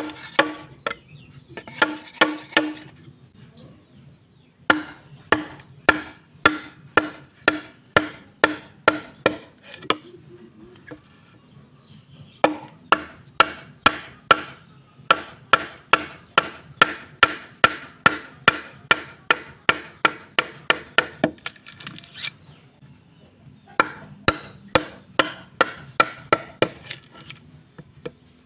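Bamboo being struck over and over with a tool, sharp hollow knocks about two a second. They come in runs of several seconds broken by short pauses.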